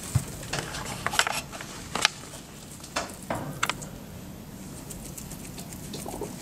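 A hairless guinea pig chewing and tugging at dry hay: irregular crisp crunches and rustles of hay stalks, with a few louder snaps in the first four seconds.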